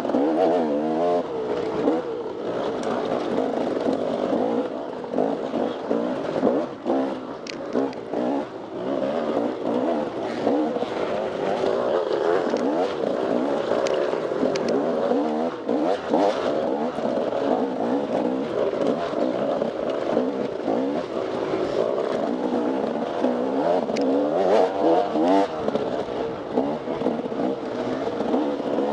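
Off-road motorcycle engine revving up and down continuously as the bike is ridden through the course, pitch rising and falling with each throttle change. Occasional sharp knocks and clatter.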